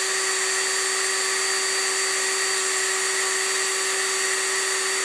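Electric drill driving a screw into a rack rail, its motor running at a steady, high whine throughout.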